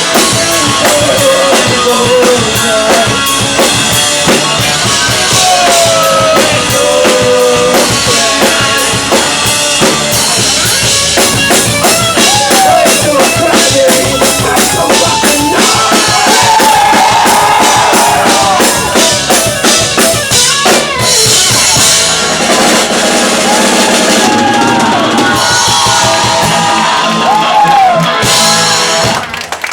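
Live rock band playing an instrumental stretch after the chorus: a full drum kit hitting bass drum and snare under loud melody lines that bend in pitch. The loudness dips briefly near the end, as the song comes to its close.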